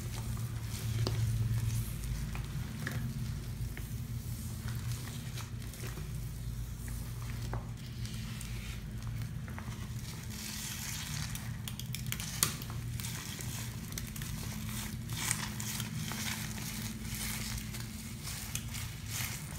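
A sponge scrubbing a sink basin coated in wet Comet cleanser paste, a rubber-gloved hand working it round: a wet, crackly, scratchy rubbing with a couple of sharp clicks. A steady low hum runs underneath.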